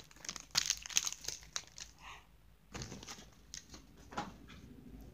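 Crinkling of a foil Pokémon booster pack wrapper being handled, in irregular crackles with a short pause a little after two seconds in.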